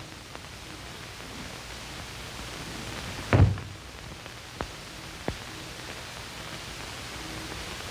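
Steady hiss of an early sound-film soundtrack, with one dull thump about three and a half seconds in and two faint clicks over the next two seconds.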